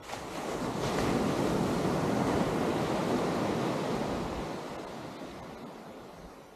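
Atlantic surf: a wave breaking and washing up the sand, a rushing that swells quickly, holds for a couple of seconds, then slowly fades away.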